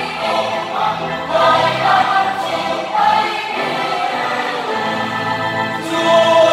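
Large mixed church choir singing a Vietnamese Catholic hymn in harmony, men's and women's voices together on held chords that change every second or so.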